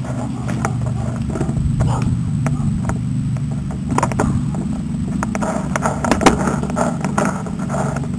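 Handling noise from a camera mounted on a control pole carried at a walk: irregular knocks and rattles of the pole and its cable loop over a steady low rumble, with one sharper knock about six seconds in.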